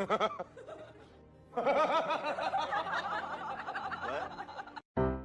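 Snickering laughter over music: a dense run of quick, wavering laughs begins about a second and a half in and cuts off suddenly near the end.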